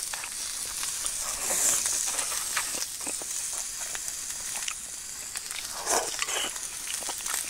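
Meat sizzling on a ridged cast iron grill pan over charcoal, a steady frying hiss, with a few short clicks scattered through it.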